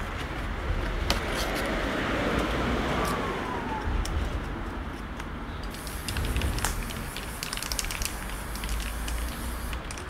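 Aerosol spray-paint can hissing on and off, over a steady low rumble of street traffic, with scattered light clicks.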